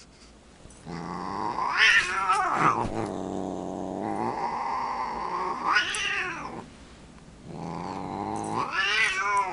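Siamese cat growling: three long, low drawn-out growls, each swelling into a high wavering yowl before dropping back. It is an aggressive warning at the dog it is squaring up to.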